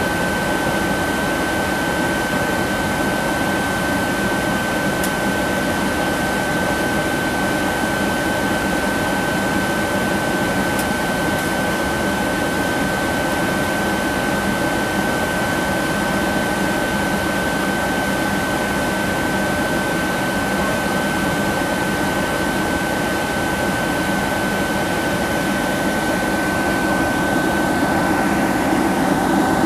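Steady cabin noise of a Boeing 767-300ER airliner in flight: an even rush of engine and airflow noise with a steady high whine running through it. Near the end the noise shifts and grows slightly louder, and the whine drops away.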